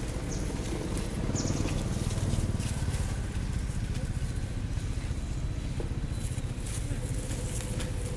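Macaques scuffling over dry leaves, with rustling and crackling throughout and two brief high squeaks from the baby within the first second and a half, over a steady low rumble.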